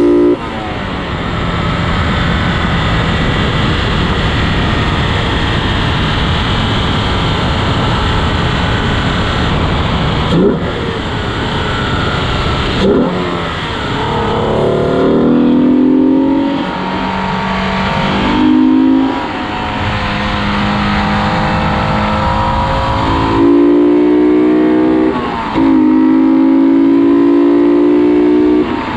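Modified 3.0-litre Alfa Romeo GTV6 V6 under way, its induction noise picked up in the engine bay near the intake: the engine note climbs in pitch as it accelerates, with short breaks at several gear changes and steadier running in between.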